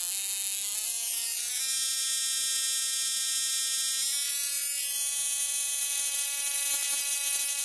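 Small solid-state Tesla coil (oneTesla Tiny Tesla) sparking with a steady buzzing tone at the interrupter's fixed frequency. The pitch steps up several times in the first second and a half and again about four seconds in as the frequency is raised, reaching about 283 Hz.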